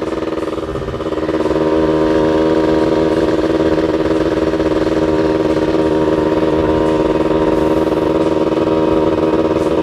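Yamaha F1ZR two-stroke single-cylinder motorcycle engine running steadily at a constant cruising speed, heard from the rider's seat.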